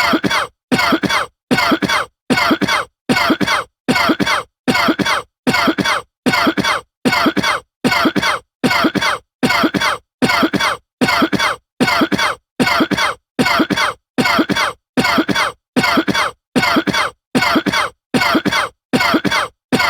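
A man coughing in short, evenly spaced bursts, a little more than one a second, with a silent gap between each.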